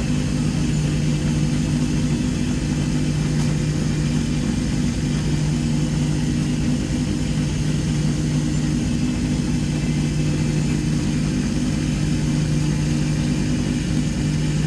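Lapidary trim saw running with a steady hum while its diamond blade cuts through an agate.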